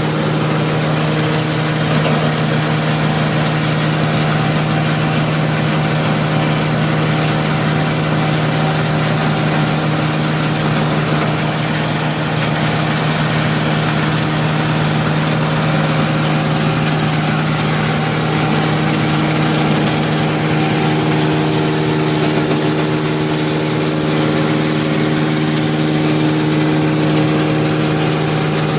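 Rice husk grinding mill running steadily during a trial grind of coarse rice husk: a constant machine hum with a dense hiss over it, and a higher drone that grows a little stronger about two-thirds of the way through.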